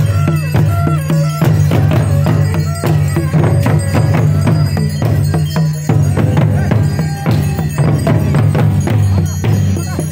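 Traditional Nepali folk music played loud: drums and jingling percussion beating rapidly, under a steady low drone with high wavering tones over it.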